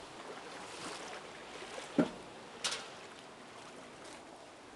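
Muddy floodwater flowing with a steady rushing sound. About two seconds in there is a sharp knock, followed by a shorter click.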